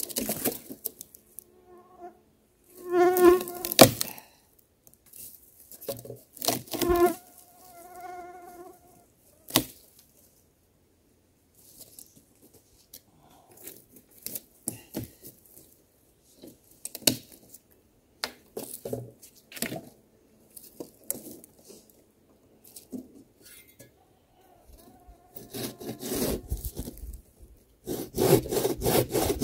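An insect buzzing close past the microphone a few times, among scattered knocks and rustles, then a Silky Gomtaro hand pruning saw starting to cut a dry log with steady back-and-forth strokes near the end.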